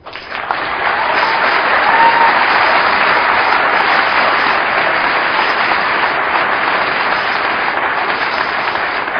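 A large audience applauding: many hands clapping together, starting suddenly and holding strong, easing slightly near the end.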